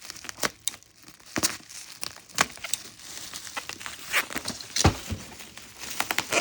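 Packing material crinkling and rustling as it is handled and pulled apart, with many irregular sharp crackles.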